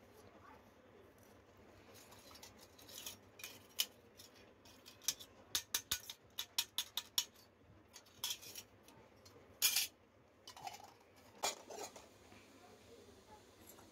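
Miniature toy plates and bowls clinking and tapping against each other as they are handled and stacked: a run of quick, irregular light clinks, busiest in the middle, with a few louder ones later.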